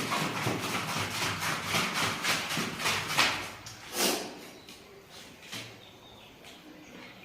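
A person eating chow mein close to the microphone: a quick run of eating noises for about three seconds, then two separate louder ones.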